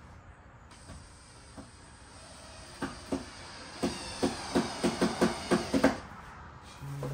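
Power drill driving a screw into a wooden subwoofer box: the tool runs with a steady whir for several seconds, with a run of about a dozen sharp, evenly spaced clicks, around four a second, near the end.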